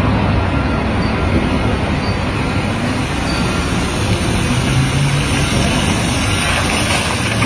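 Heavy excavator machinery running: a loud, steady mechanical rumble with a faint low hum, not changing much.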